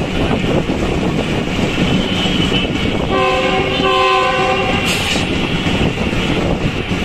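Passenger train clattering along the rails at speed, heard through an open coach door with rushing wind. A little after three seconds in, the train's horn sounds once, a chord of several notes held about a second and a half.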